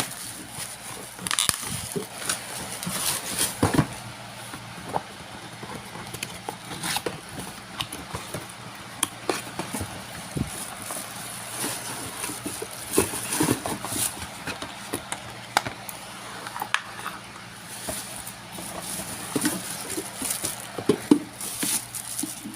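Irregular clicks, taps and rustling of an electric kettle and its packaging being handled, over a steady high hiss.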